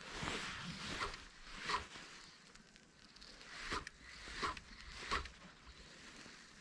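Footsteps swishing and crunching through brush and leaves on a pond bank: a string of short rustles at an uneven walking pace.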